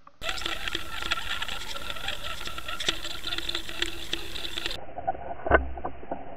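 Underwater camera audio: a steady rush of water with dense small ticks and patter as the camera moves through the water behind a lure. The sound turns duller about five seconds in, and a sharp knock comes about half a second after that.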